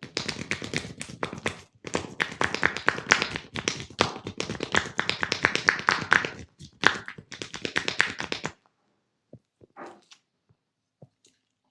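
Rapid percussive massage strokes: hands slapping and chopping on skin, several a second with a couple of brief breaks. The run stops about eight and a half seconds in, followed by a few soft, isolated taps.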